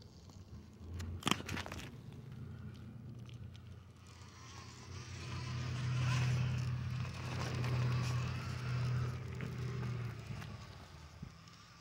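Steady buzz of a small electric motor, growing louder a few seconds in and easing off near the end, with a sharp click about a second in.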